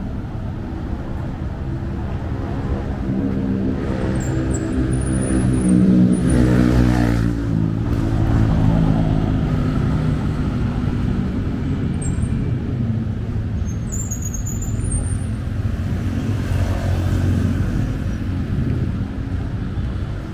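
Street traffic: motor vehicles passing with a steady low rumble. One engine passes close and is loudest about six to seven seconds in.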